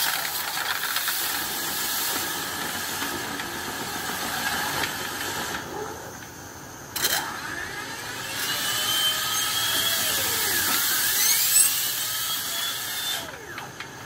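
Compressed air hissing through a dryer vent duct as an air-powered cleaning tool whirs inside it, blowing packed lint out of the pipe. The whirr rises and falls in pitch. The air eases off about six seconds in and comes back with a sudden burst a second later.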